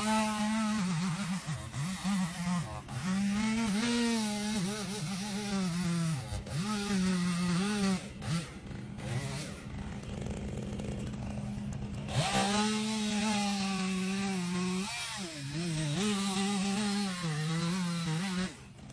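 Stihl MS 201 T top-handle two-stroke chainsaw running at high revs while cutting wood, its pitch sagging and recovering under load. The engine note drops back for a few seconds midway, then comes up again and cuts off just before the end.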